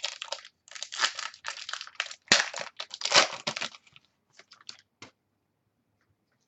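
Crinkling and tearing of trading-card packaging as the next pack of baseball cards is opened, in a run of rustling bursts that thins out and stops about five seconds in.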